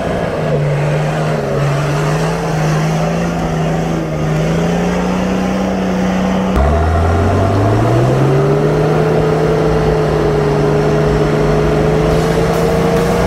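Four-wheel-drive ute's engine working under load in mud. About six and a half seconds in it becomes louder, revs up and holds a steady higher note while towing on a snatch strap.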